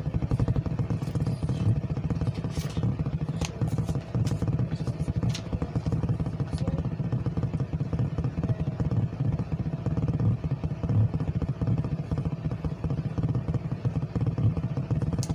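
A steady low mechanical hum and rumble, unchanging throughout, with a few light clicks and knocks scattered through it.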